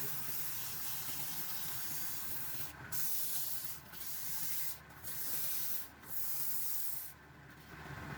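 Hissing, scraping noise of wood being worked on a turning lathe, broken by about five brief pauses, with a low steady hum from the running lathe underneath.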